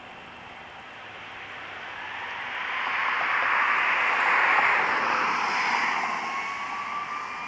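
A vehicle passes by, its road noise swelling to a peak about four seconds in and then fading, while an emergency siren wails with a slow rising and falling pitch, clearest near the end.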